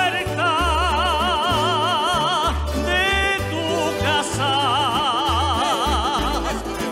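Folk group singing and playing: a solo voice holds two long notes with wide vibrato, with a short break between them, over plucked guitars and a steady bass line.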